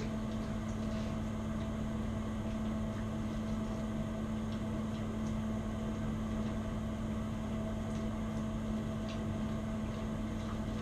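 Steady low electrical hum of room background noise, with a few faint small clicks.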